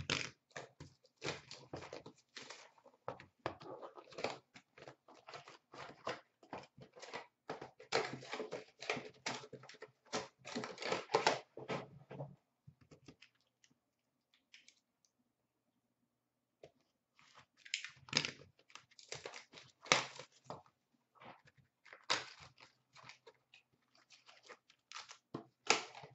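A hockey card box being torn open and its Fleer Retro packs handled: bursts of tearing and crinkling wrappers with sharp clicks of cardboard. The noise stops for a few seconds midway, then starts again.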